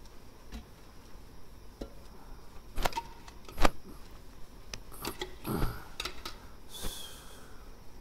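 Handling and movement noises: a few sharp clicks and knocks, the loudest about three and a half seconds in, then cloth rustling and a short hiss near the end.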